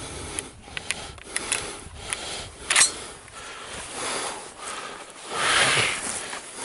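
Rustling and handling noise from hunters moving with their gear, with scattered light clicks, one sharper click a little under three seconds in, and a louder hiss of noise lasting about a second near the end.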